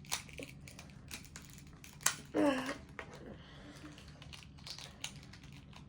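Plastic pieces of a 2x2 Rubik's cube clicking and snapping as they are handled and pushed into place, a few sharp clicks with the loudest about two seconds in. A short vocal sound follows just after it.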